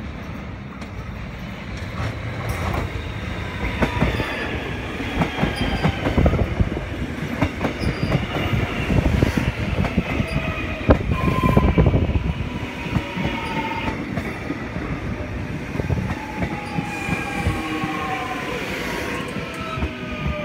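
A train moving along the track close by: its wheels click and clatter over the rail joints, loudest about halfway through. Whining tones fall slowly in pitch, most plainly near the end.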